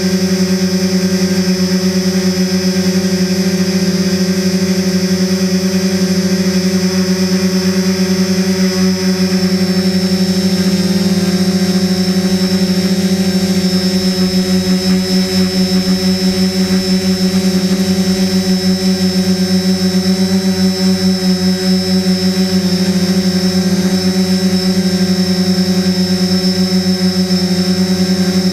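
Steady buzzing hum of a hovering camera drone's electric motors and propellers, picked up by its own onboard camera. The pitch holds steady, with a slight pulsing beat in the loudness.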